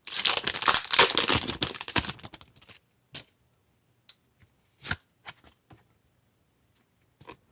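A foil Pokémon card booster pack wrapper being torn open and crinkled for about two seconds. It is followed by a few scattered light clicks and rustles as the cards are handled.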